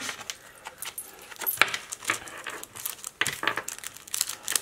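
Sticker sheets in cellophane sleeves being handled and put away: light crinkling with scattered taps and clicks, sharper ones about one and a half, three and four seconds in.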